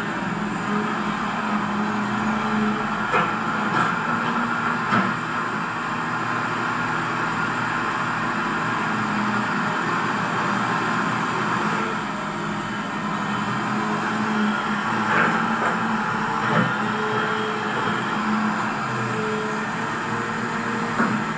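RC model CAT 336D excavator running, its motors giving a steady whine and hum, with a few short clicks and knocks from the machine working.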